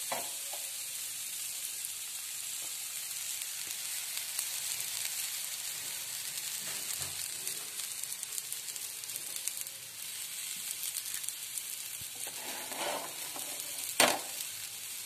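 Gram-flour tomato omelette sizzling steadily in oil on a hot iron tawa, with a steel spatula moving over it. One sharp knock near the end.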